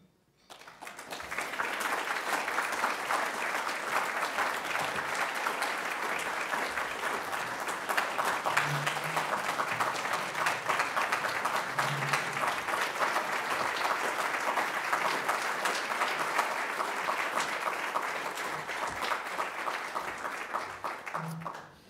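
A roomful of people applauding, many hands clapping together. It swells up about a second in, holds steady and dies away near the end.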